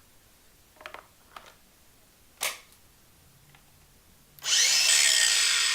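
Ryobi One+ 18V cordless angle grinder: a few clicks of handling, one of them sharp, then the grinder switched on about four seconds in, spinning up and running free at full speed with a loud, high whine.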